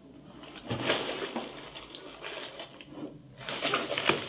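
Cardboard shipping box and its packing being handled: irregular rustles, scrapes and small knocks of cardboard, with a brief lull about three seconds in.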